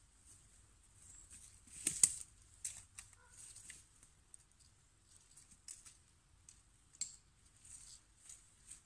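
Scattered rustles and crackles of a poncho tarp being handled on its ridgeline cord, mixed with footsteps on the forest floor; a sharp crack about two seconds in is the loudest.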